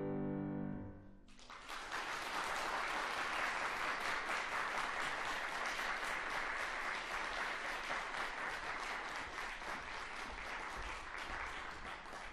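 A grand piano's final chord dies away, and about a second in the audience starts applauding. The applause runs on steadily, thinning a little near the end.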